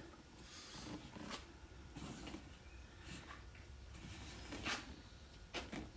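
Faint handling noise: a few soft rustles and light taps from a homemade plastic-jug prop chainsaw being turned in the hands.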